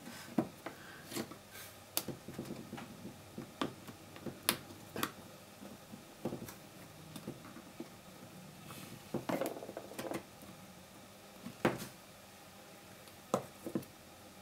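Irregular light clicks and taps from hands handling the opened iPod Video's metal back case and front plate and their ribbon connectors, about a dozen short clicks with the sharpest ones near the middle and toward the end.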